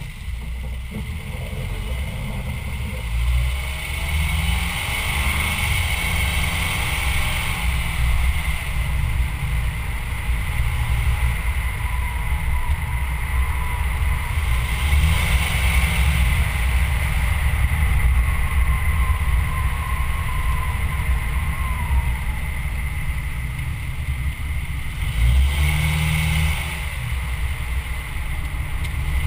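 Vehicle driving along a paved road, heard through a low-mounted camera: a steady, heavy low rush of wind buffeting the microphone mixed with tyre and road noise.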